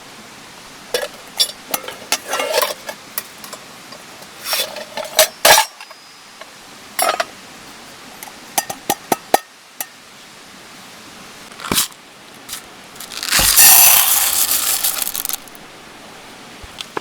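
Metal camp cookware and utensils clinking and knocking as they are handled, with a louder hiss lasting about two seconds near the end.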